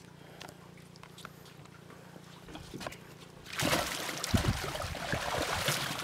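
Mesh fish keep net hauled up out of the water: water suddenly pours and splashes off the net from about three and a half seconds in, with a few low thumps soon after.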